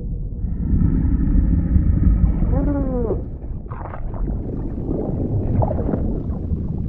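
Whale-like call of a sea monster over a deep underwater rumble: a long moaning call that swoops up and down in pitch about three seconds in, followed by shorter calls.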